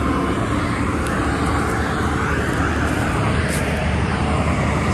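Steady roar of interstate highway traffic, with no single vehicle standing out.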